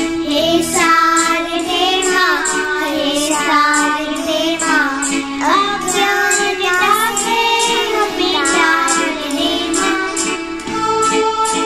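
Children singing a devotional song over recorded instrumental accompaniment, with a steady high percussion tick keeping the beat.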